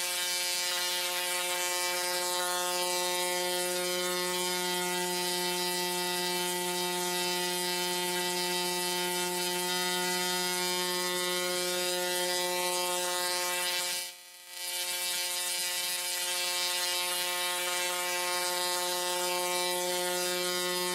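Post-Soviet solid-state Tesla coil firing spark streamers from its breakout point: a steady, loud buzz at the coil's interrupter rate. It cuts out for about half a second roughly 14 seconds in, then resumes.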